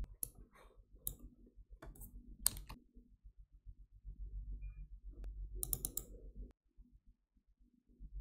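A few sharp clicks of a computer mouse and keyboard, with a quick cluster of clicks about two-thirds through, over a low hum that stops shortly after the cluster.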